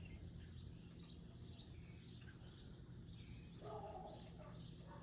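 Faint birds chirping in the background over a low steady hum. A lower-pitched call joins about three and a half seconds in.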